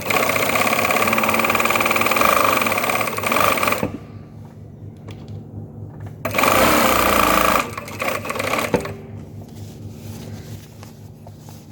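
Brother single-needle lockstitch industrial sewing machine running, stitching in two bursts: about four seconds, then, after a short pause with a few clicks, a second run of about a second and a half, followed by a sharp click.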